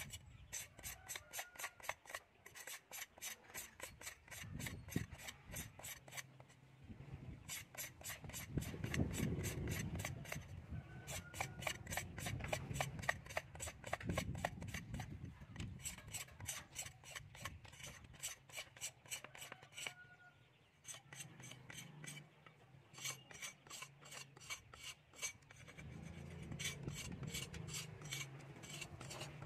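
A bamboo rod being scraped by hand in quick, even repeated strokes, with a couple of short pauses, as its outer skin is worked off to smooth it.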